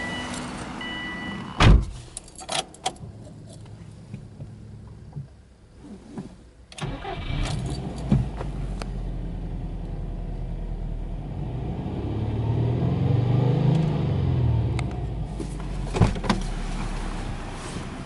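A repeating two-tone warning chime, then a loud thump and a few clicks a couple of seconds in. After a short pause, the Subaru Impreza WRX's turbocharged flat-four (boxer) engine starts about seven seconds in and settles into a steady idle. Its revs rise and fall gently once near the middle.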